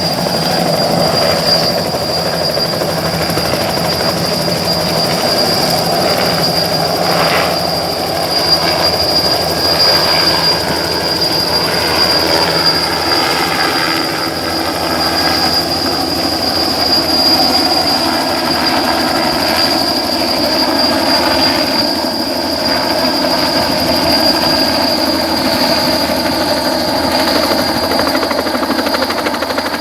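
Small helicopter running on the ground: a loud, steady engine and rotor noise with a constant high-pitched whine over it.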